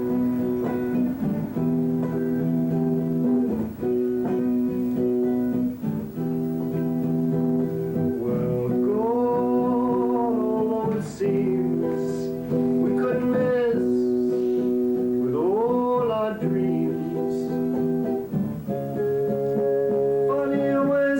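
Acoustic guitar strumming steady chords while a Lhasa Apso howls along in long wails that rise and fall in pitch, a few times in the second half.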